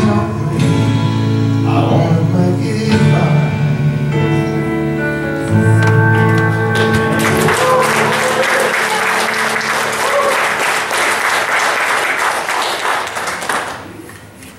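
A gospel song sung by a man with musical accompaniment ends on long held notes. About halfway through, the congregation applauds for roughly six seconds, and the applause dies away near the end.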